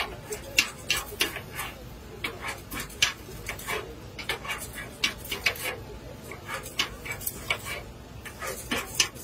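Metal spatulas scraping and clinking against a flat metal griddle, many sharp strokes in an irregular rhythm.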